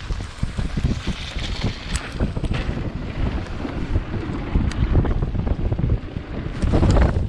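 Wind buffeting the microphone over the rumble and rattle of a mountain bike rolling downhill on a dirt trail and across a wooden plank bridge, with many sharp clicks and knocks. It gets louder near the end.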